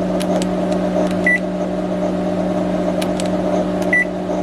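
A microwave oven's touch-panel keys being pressed, each press answered by a short high beep: two beeps about two and a half seconds apart, with light key clicks, over the oven's steady hum.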